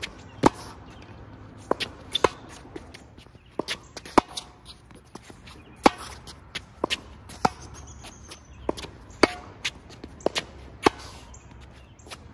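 Tennis balls struck with rackets in a fast volley rally: sharp, short racket-on-ball hits about once a second, alternately louder and fainter, some with a brief string ping.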